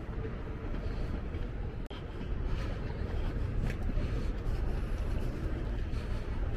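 Steady low rumble of outdoor city ambience, traffic and wind, with no distinct single event; it briefly drops out about two seconds in.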